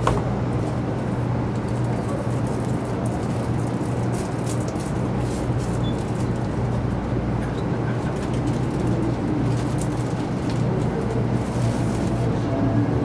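Steady low hum and background noise of a 300 series Shinkansen train, with scattered faint clicks.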